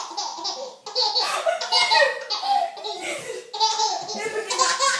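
Baby laughing hard in belly laughs, in three bouts with short breaks for breath.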